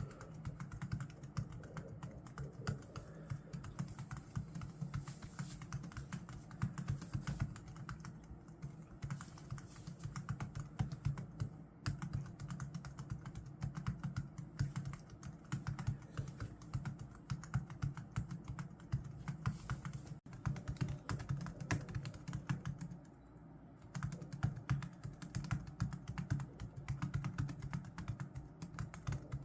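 Rapid, continuous typing on a Logitech MX Keys keyboard, a dense stream of key clicks with a short pause about two-thirds of the way through.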